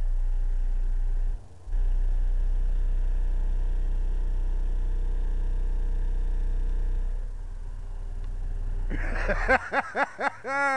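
Car audio subwoofers playing a deep, steady bass note at high volume, heard from outside the vehicle. The bass drops out briefly about a second and a half in. Near the end comes a quick run of short sounds sweeping up and down in pitch.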